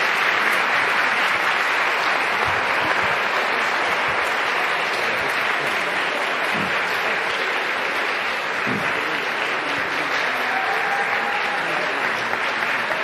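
Audience applauding: a long, steady round of clapping that eases slightly toward the end.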